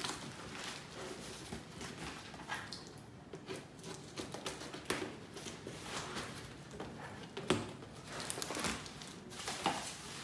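Scissors snipping through kraft paper and cardboard packaging, with the paper and cardboard rustling and crinkling as the wrapping is pulled open. Irregular, with scattered short sharp snips and clicks.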